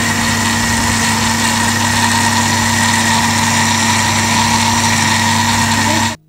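Electric blender running at a steady speed, blending a jar of milk with chopped fruit and sugar into a smooth juice: an even motor whine over the churning liquid. The motor cuts off abruptly near the end.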